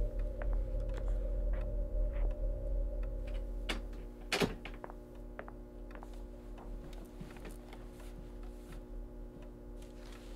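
Audio-drama room ambience: a steady low hum with faint scattered clicks and one sharp knock about four seconds in, after which the deepest part of the hum fades.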